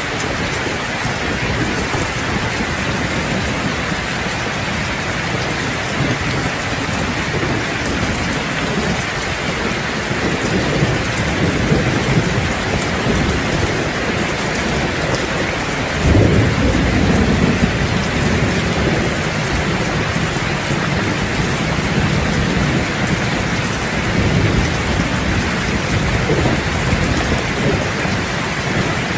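Heavy rain falling steadily on a roof, with thunder rumbling low. The loudest roll starts about halfway through and rumbles on for a few seconds, with fainter rolls before and after it.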